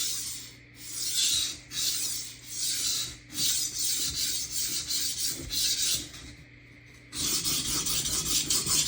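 Steel kitchen knife blade scraped back and forth across a wet Shapton water stone in freehand sharpening strokes, a hissy rasp: about eight even strokes roughly a second apart, a short pause about six seconds in, then quicker, closer strokes. This is the blade's second side being worked after a burr was raised on the first.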